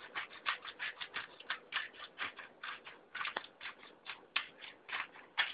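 Pepper mill being twisted to grind pepper: a quick, even run of short grinding strokes, about four a second.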